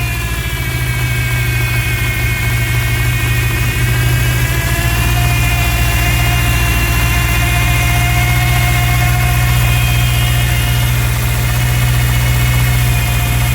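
1999 Ford Ranger's 2.5-litre four-cylinder engine idling steadily, with a high whistle over it that dips in pitch near the start and then wavers slowly, the sound of a large vacuum leak. A second, lower whistle tone joins about a third of the way in.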